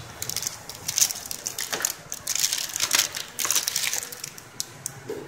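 Clear plastic wrapping crinkling and crackling in irregular bursts as hands handle a plastic-sealed set-top box and lift it from its cardboard tray, loudest about a second in and again around three seconds.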